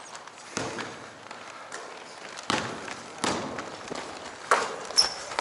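Scattered thuds on a hardwood basketball court and a short, high sneaker squeak near the end, echoing in the gym.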